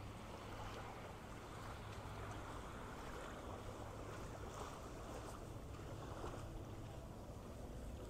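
Faint, steady outdoor ambience of small bay waves lapping on sand, with a steady low hum underneath.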